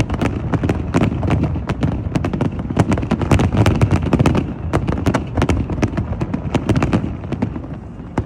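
Fireworks display going off in rapid, continuous bangs and crackles over a low rumble, the bursts thinning slightly near the end.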